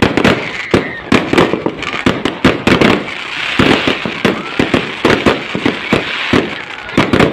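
Aerial fireworks going off in a rapid volley: many sharp bangs, several a second, with a crackling fizz between them that thickens past the middle.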